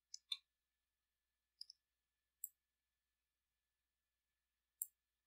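Computer mouse clicking: about six short, separate clicks spread over a few seconds in near silence, the loudest a third of a second in.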